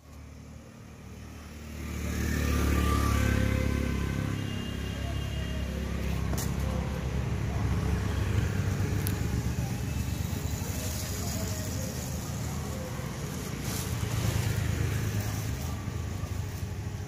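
Passing road traffic: a motor vehicle's engine rumble swells about two seconds in and fades, then a steady low traffic rumble continues with a second swell later.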